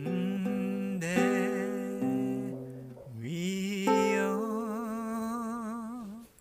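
A solo voice singing a slow song to strummed guitar chords. It ends on a long held note with vibrato that fades out near the end.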